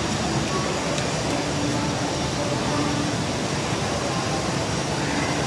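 Crowded indoor shopping-mall ambience: a steady wash of crowd murmur and ventilation noise, with faint snatches of distant voices.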